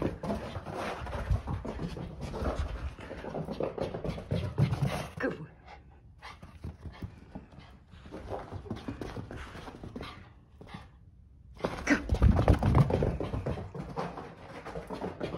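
A small dog panting in excitement, quieter for several seconds in the middle and louder again near the end.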